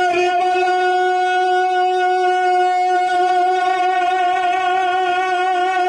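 A male naat reciter singing one long held note at a steady pitch, amplified through a stage microphone, with a slight waver in its upper overtones.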